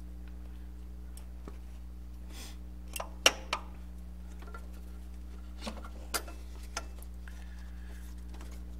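A handful of short clicks and knocks from hands and a tool working a serpentine belt off its pulleys, with the engine off: a quick cluster about three seconds in, the sharpest of them, and three lighter ones around six seconds. A steady low hum runs under them.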